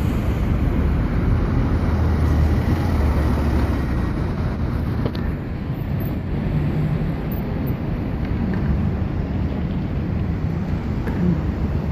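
Busy city road traffic, with bus and car engines running and passing, over a steady low rumble of wind on the microphone.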